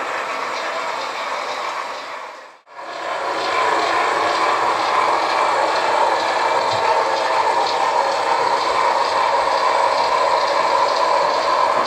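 HO-scale model freight train running on the layout's track: a steady rolling hiss of wheels and running gear. It drops out briefly about two and a half seconds in and comes back louder.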